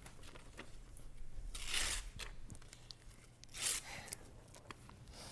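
A small slip of paper being torn by hand, with two rips about two seconds apart and a few light paper rustles between them.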